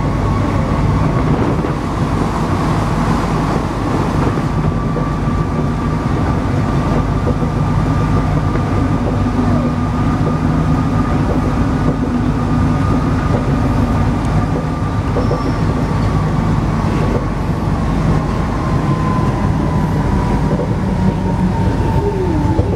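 Alstom NS-16 metro train heard from the driver's cab while running, with a steady low rumble and a high whine from the traction drive. The whine drifts lower in pitch over the last few seconds as the train begins to slow.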